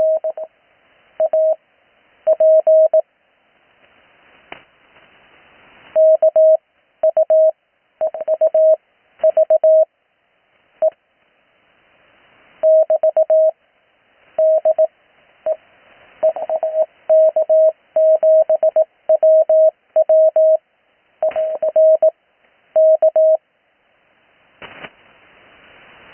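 Morse code (CW) received on the 80-metre amateur band: a single steady tone of about 600–700 Hz keyed on and off in dots and dashes, grouped into characters. Receiver hiss swells in the gaps between characters, with a few sharp static clicks.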